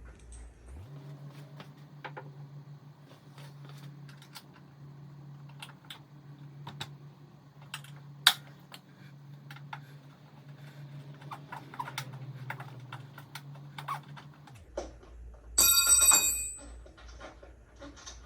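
Hand tools and small metal parts clicking and tapping during work on a motorcycle, over a steady low hum. About fifteen seconds in, a metal tool is dropped and clatters with a loud ringing.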